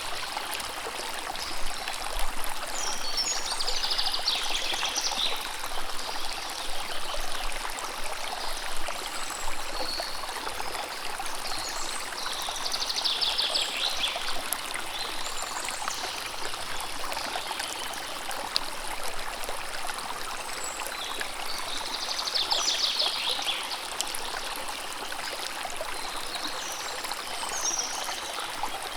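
Steady rushing and trickling of a river's running water. A songbird sings a short, rapid, high trill three times, roughly every nine seconds.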